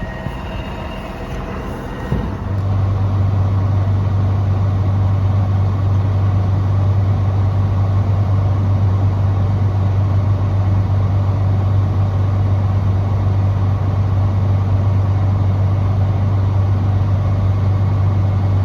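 Tractor engine running while it drives a round baler; about two seconds in it gets louder and settles into a steady low drone that holds to the end.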